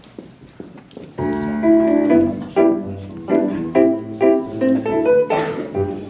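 Nord Stage electric keyboard playing piano chords as an improvised accompaniment. It comes in about a second in and moves from chord to chord at a steady pulse of about two a second.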